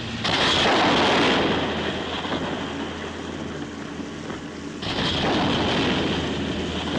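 A loud rushing, rumbling noise that swells twice: once about a third of a second in, fading after a couple of seconds, and again near five seconds in.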